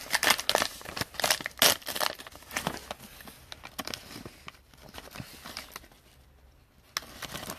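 Trading card pack wrapper being torn and crinkled as a pack is opened: a quick run of irregular crackles that thins out after about three seconds, with a sharp click near the end.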